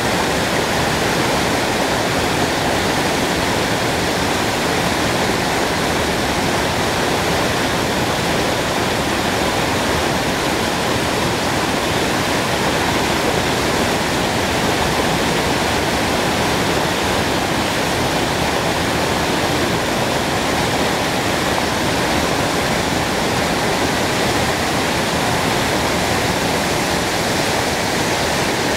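A small woodland stream cascade: water falling and rushing over rocks in a steady, unbroken rush.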